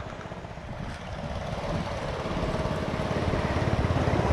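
A small engine running steadily, slowly growing louder.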